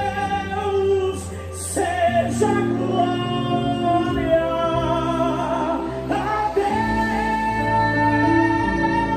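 Live gospel band music: a singer's melody over slow, sustained chords and bass notes that change every second or two.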